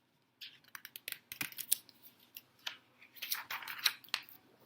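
Pages of a picture book being turned and handled: a run of sharp paper clicks and rustles for about four seconds.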